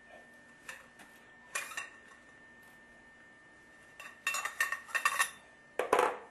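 Metal fittings and tools being handled, clinking and clattering: a couple of knocks in the first two seconds, a quick run of clinks about four to five seconds in, and a louder clatter near the end.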